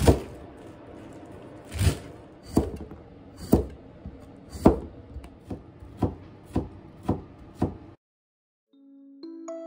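Kitchen knife chopping mizuna greens and cucumber on a wooden cutting board: about ten sharp knocks at uneven spacing, stopping about eight seconds in. A soft chiming melody of background music begins near the end.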